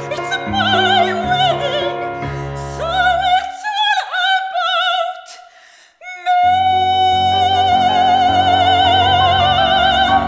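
Operatic soprano singing with wide vibrato over grand piano accompaniment. The music breaks off briefly around five seconds in, then she holds one long high note with vibrato over a sustained piano chord.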